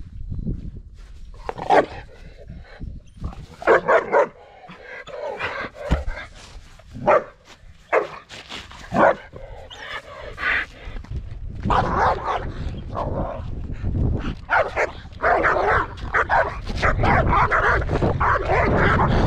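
A dog barking in separate bursts of one or a few barks, which come more often and run together over the last several seconds.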